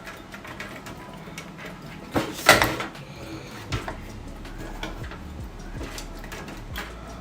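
Handling noise of cables being pulled and pushed through a PC case: scattered light clicks and rubbing, with one louder scrape about two and a half seconds in.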